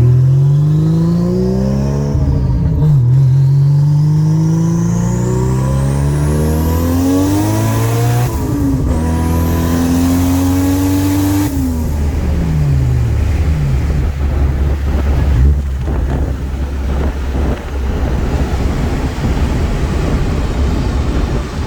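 Turbocharged 1JZ inline-six in a Corolla wagon, accelerating hard through the gears. The engine note climbs, drops at a shift about two and a half seconds in and again about eight and a half seconds in, then falls away as the throttle closes around twelve seconds. It settles to a low rumble to the end, with a thin rising whine above the engine during the pulls.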